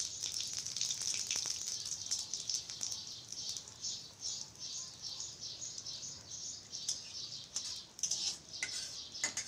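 Cumin seeds, bay leaf and dried red chillies sizzling and crackling in hot oil in a steel kadhai, the seeds spluttering and popping.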